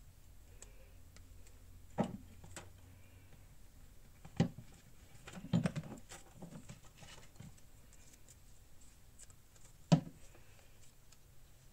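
Hands handling paper pieces on a journal page: soft paper rustling with a handful of short, sharp taps as pieces are set down and pressed onto the page.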